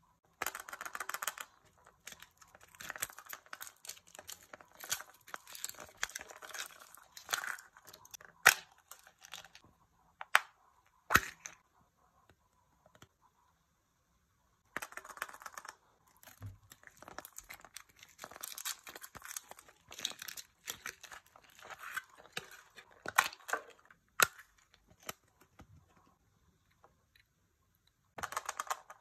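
Thin plastic wrapping crinkling and tearing as small surprise-egg toys are unwrapped by hand, in two long spells with a quiet pause of a few seconds between them, and a few sharp clicks as small plastic parts are handled.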